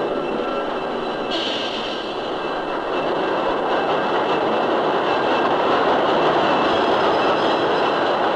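Diesel freight train running: a steady rumble of the locomotives and rolling wheels on the rails, with a sudden brief hiss about a second in.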